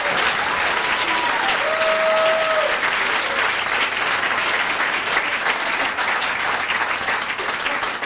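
Audience applauding and cheering after a punchline, with a few calls rising above the clapping in the first three seconds. The applause eases off near the end.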